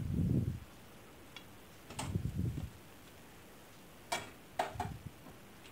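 Kitchen utensils being handled at a gas stove: a few sharp clicks and clinks of a slotted spoon and a steel plate, with a couple of soft thuds. The clinks come about two seconds in and again about four to five seconds in, as the plate of fried pakoras is picked up.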